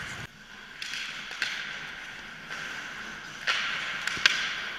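Ice skate blades scraping and carving on rink ice in surges, with a few sharp clacks of sticks and puck around the net, the loudest a little after four seconds.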